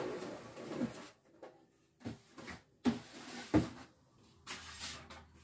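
Hard plastic knocks and clicks as the Magimix food processor's accessory storage box is handled: the clear lid and the rack of slicing discs being set and shifted. A few sharp knocks stand out in the middle.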